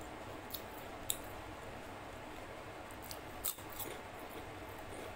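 Close-up eating sounds of a person chewing chicken leg pieces eaten by hand: a few sharp, crisp clicks and crunches, the loudest a little after one second and around three and a half seconds in, over a steady low hiss.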